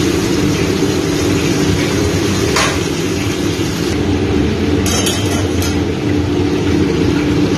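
Prawns deep-frying in a large pan of hot oil over a commercial stand gas burner: a steady low roar with frying sizzle on top. A few quick metal clinks come about five seconds in.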